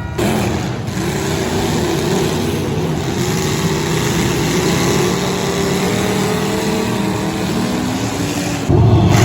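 Demolition derby car engines running and revving, with a dense mechanical din. A louder, heavier stretch starts near the end.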